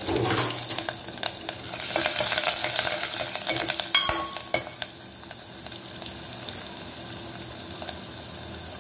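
Tadka sizzling in hot oil: cumin and mustard seeds, green chillies and curry leaves frying in an aluminium pot, with crackles and a steel ladle stirring and scraping against the pot. The sizzle grows louder about two seconds in and eases after about four and a half seconds.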